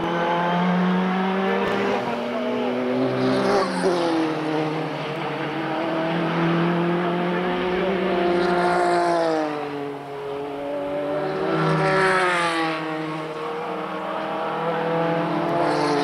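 Group C endurance prototype race cars running through a series of corners, one after another, their engine notes rising and falling with lifts, braking and gear changes. The pitch drops sharply about four seconds in, again around eight to ten seconds, and swells and falls once more around twelve seconds.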